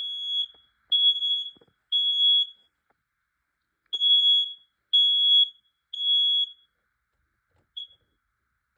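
Kidde smoke alarm sounding its evacuation pattern after being set off by aerosol test smoke: three loud, high-pitched beeps about a second apart, a pause, three more, then one short chirp near the end.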